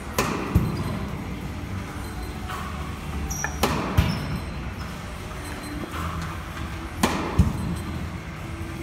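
Tennis ball-machine practice: a racket striking tennis balls, each hit a sharp crack followed about half a second later by a duller thump. The pairs come about every three and a half seconds, three times, over a steady hum.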